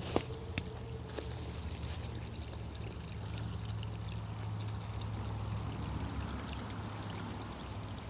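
Small stream running steadily, a pouring, trickling sound, with a few sharp clicks in the first second or so.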